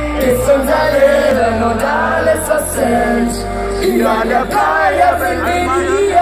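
A female singer sings live into a microphone over loud amplified backing music, with a heavy bass line.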